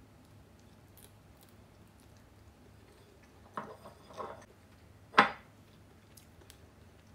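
Tableware handled on a table: the instant-ramen cup's lid is set down with a couple of light clatters about three and a half seconds in, then a sharper, louder knock about five seconds in, followed by faint ticks.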